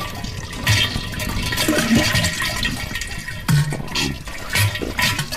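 Toilet flushing: a steady rush of water with irregular gurgles.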